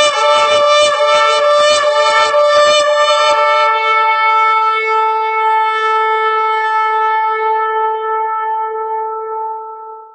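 Shofar blown in one long blast: the note is rough and broken for about the first three seconds, then held steady on one pitch and fading out near the end.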